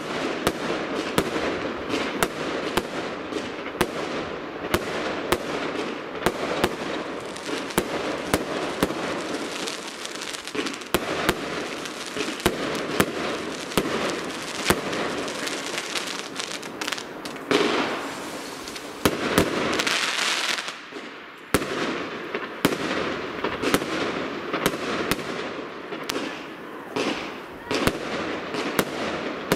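Fireworks display: aerial shells bursting in rapid, irregular bangs, several a second, over a continuous crackle. A louder hissing, crackling stretch comes a little past the middle.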